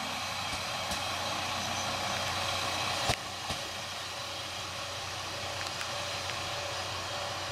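Kanto Railway Joso Line diesel railcar moving off along the track, heard as a steady noise of the train running. A single sharp click comes about three seconds in.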